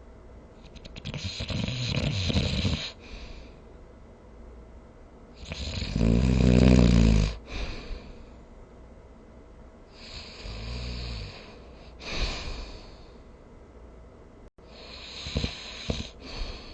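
A sleeping person snoring: a run of rough, rattling snores and airy breaths, each lasting one to two seconds. The loudest and deepest snore comes about six seconds in.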